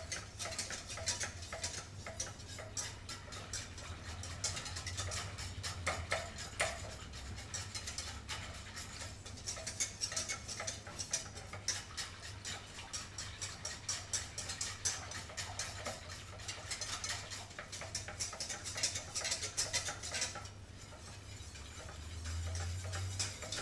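A utensil stirring béchamel sauce in a metal pot, a rapid, continuous scraping and ticking against the pot's sides and bottom, letting up briefly near the end. The sauce is kept on the lowest heat and stirred nonstop so it thickens without lumps.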